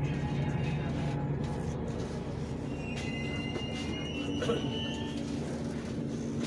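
Chennai Metro train heard from inside the carriage: a steady low hum, with a high squeal from about three to five seconds in.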